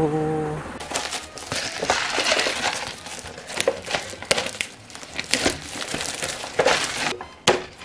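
Thin plastic shrink film being torn and peeled off a paper instant-noodle cup, crinkling and crackling irregularly as the cup is turned in the hands.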